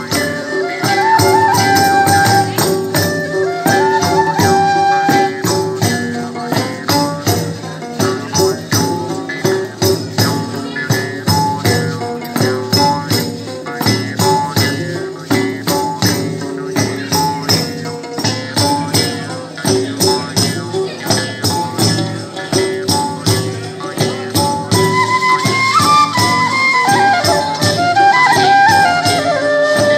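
Nepali folk dance music: a steady beat on damphu frame drums under a wind-instrument melody, which grows louder near the end.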